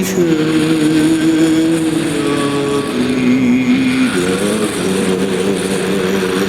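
Instrumental music: a loud, harsh drone of held tones over a noisy haze, the notes shifting to new pitches every second or two.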